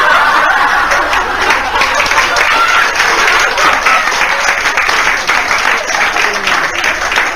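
Live audience applauding after a joke's punchline, a dense clapping that carries on steadily and eases slightly near the end.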